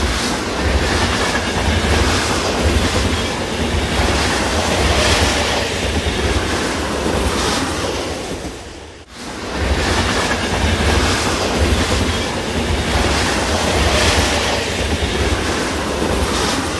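Train running along rails, a steady rolling rumble and rattle of wheels on track. It drops away sharply for a moment about nine seconds in, then picks up again.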